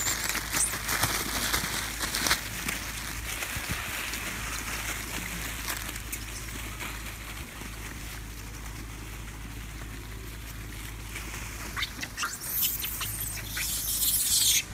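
A troop of long-tailed macaques scrambling and feeding over dry leaf litter: a steady rustling and crackling of leaves, with sharper, higher animal sounds near the end.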